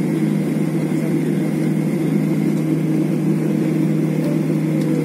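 Airliner engines heard from inside the passenger cabin during taxi after landing: a steady hum with a faint high whine, unchanging in level.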